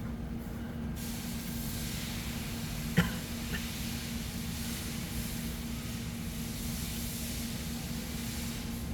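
Steady low electrical hum and hiss of the recording, with one sharp click about three seconds in and a faint tick just after.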